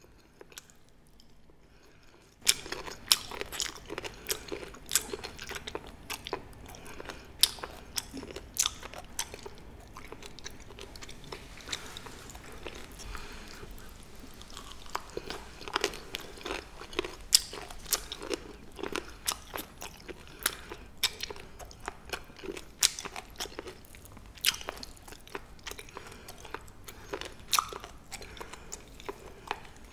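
Close-up crisp crunching and chewing of pa-ganghoe, bite-sized rolls of Welsh onion, with many sharp, irregular crunches. The crunching starts about two seconds in, after a short near-quiet moment.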